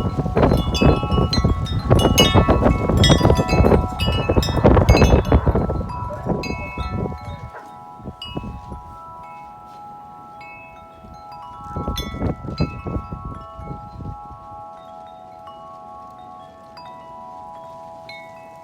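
Corinthian Bells 36-inch wind chime ringing in strong gusting wind. For the first six seconds it is struck rapidly over and over while wind rumbles across the microphone. Then its tubes ring on and fade, with another brief gust and flurry of strikes about twelve seconds in.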